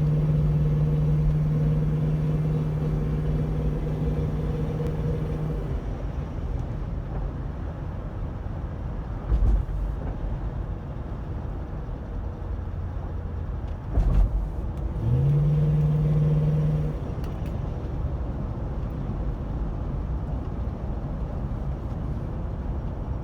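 Car engine running with the noise that appeared after a header install, a noise later traced to several loose spark plugs. It is held at raised revs for several seconds, settles to idle, is revved up once more for about two seconds, then drops back to idle. Two brief thumps come in between.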